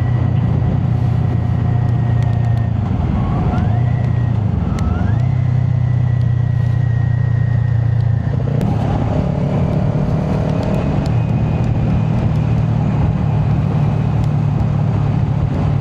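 Kawasaki Ninja 400 parallel-twin with a Yoshimura exhaust, running under way at a steady engine speed over wind noise. The pitch drops about three seconds in and climbs back around five seconds, then steps up a little just past eight seconds.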